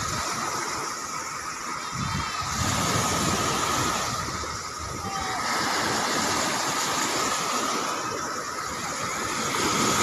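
Small waves breaking and washing up on a sandy beach, the surf swelling and easing every few seconds, with wind noise on the microphone.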